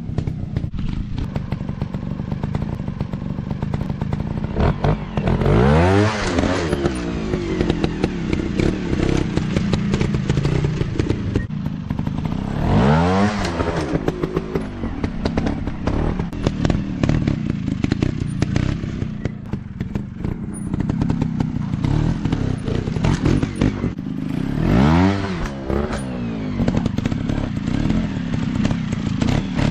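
Dirt-bike engines running, with the engine pitch rising and falling sharply four times, roughly every six to twelve seconds.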